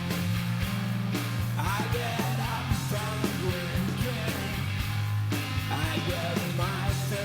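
Rock song with singing over a steady bass line.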